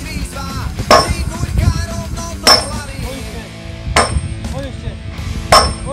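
Sledgehammer blows ringing off a heavy weight as it is driven along a steel channel, four strikes about a second and a half apart, over background pop music.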